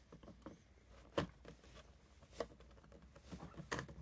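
Pliers gripping and turning the snowmobile fuel tank's gauge retaining nut, giving a few faint clicks. The sharpest click comes about a second in.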